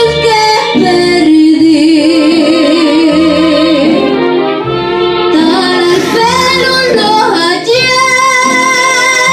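A woman singing into a handheld microphone, amplified through a PA speaker, over instrumental backing with a bass line; she holds long notes with vibrato.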